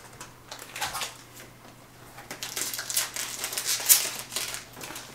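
Foil pack of Panini Mosaic soccer trading cards crinkling and tearing as it is pulled open by hand. A run of small crackles builds in the second half, with the sharpest one near the end.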